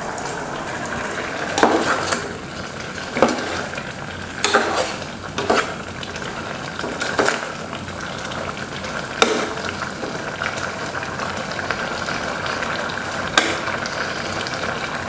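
Red curry of pork cartilage sizzling and bubbling in an aluminium saucepan as its liquid cooks down and the oil separates. A metal spoon stirs and scrapes through it, with several sharp clinks against the pot.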